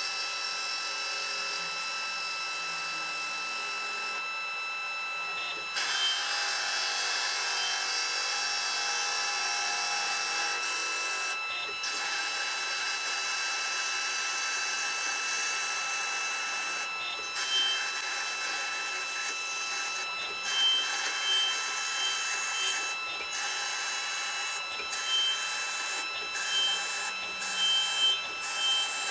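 CNC lathe running a turning program: a steady machine whine with a hiss of cutting, broken in the last third by brief pauses and short high chirps.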